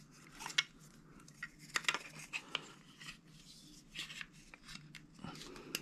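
Light, irregular clicks and taps of plastic and rubber parts handled against the scope body as a kill flash is fitted onto the objective end of a Trijicon ACOG rifle scope.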